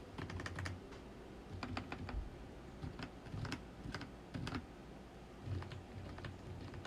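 Keys of an MSI Vigor GK20 gaming keyboard being pressed in short irregular clusters: soft, muted clicks with a low thud, typical of its quiet membrane keys.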